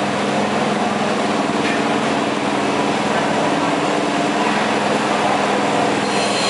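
Tractor engines idling with a steady, even drone and no revving.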